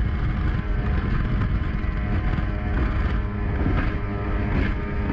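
Mercury 135 hp 2.0-litre V6 outboard on a speedboat running flat out at a steady pitch, with water and wind rushing past the hull. A couple of sharp slaps near the end as the hull hits the chop.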